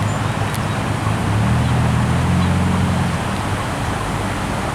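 Road traffic: a motor vehicle's low engine hum swells about a second and a half in and fades again near three seconds, over a steady rushing noise.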